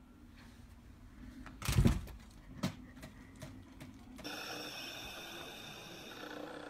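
A plastic cat flap knocking as a husky pushes its body through it, one loud thump about two seconds in and a smaller knock just after, with faint clicks. From about four seconds in, a steady hiss with faint steady tones replaces it.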